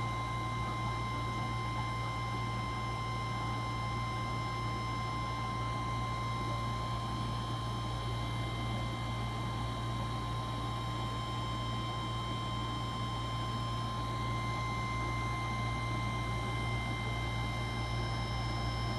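Steady low electrical hum under an even hiss, with a few thin, steady high-pitched whines and no change throughout.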